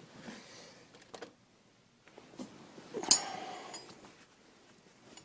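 Metal tools and suspension parts being handled under the car: a few light clicks, then a metallic clink about three seconds in that rings briefly.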